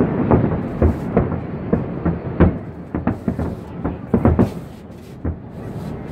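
Distant fireworks bursting: a rumble of overlapping booms thins to scattered sharp bangs and fades as the display ends.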